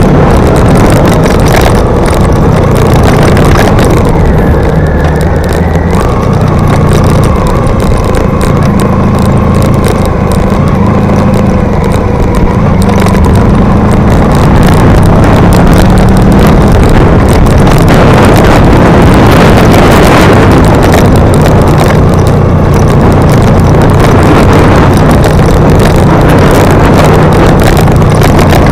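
Vehicle engine running steadily while climbing a steep narrow road, its note shifting a few times, with loud wind noise on the mounted camera's microphone.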